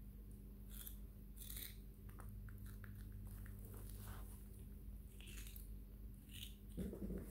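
Baby macaque biting and chewing raw bitter melon: faint, scattered wet crunches and clicks about a second apart.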